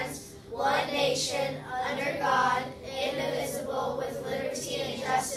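A group of children reciting the Pledge of Allegiance in unison, phrase by phrase, with short pauses between the phrases.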